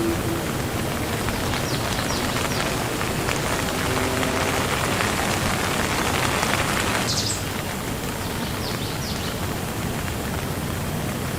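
Steady rain falling, denser for the first seven seconds or so and then abruptly lighter, with a few brief high chirps.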